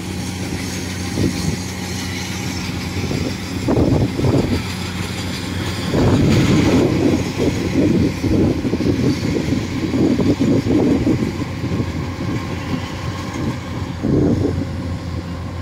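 Kubota rice combine harvester running steadily as it cuts and threshes rice, a constant low engine hum, with a rougher, louder stretch of machine noise in the middle.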